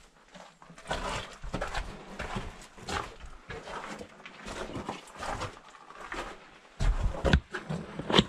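Footsteps crunching on the rocky floor of a mine adit, an uneven step about every half second, with one heavier low thump about seven seconds in.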